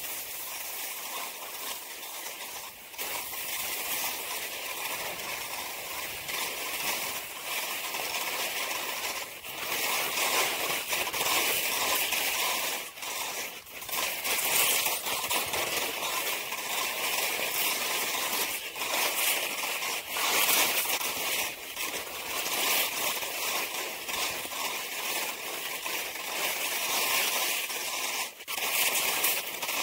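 Skis sliding and scraping over snow through a series of turns: a steady hiss that swells and dips as each turn is carved.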